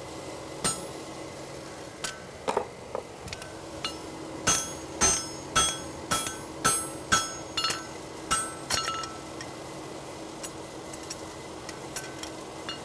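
Hand hammer striking a hot steel horseshoe on an anvil, each blow ringing. A few scattered strikes come first, then a steady run of about two blows a second from about a third of the way in, easing to light taps near the end.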